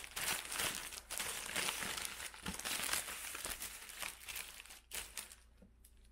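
Paper wrappers of Burger King Whoppers being unwrapped: dense crinkling and rustling of paper, thinning to a few soft crackles about five seconds in.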